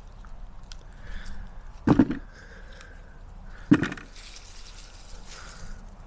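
Potatoes being picked by hand out of freshly forked soil: soft rustling of earth and dry haulm, with two dull thuds about two seconds apart.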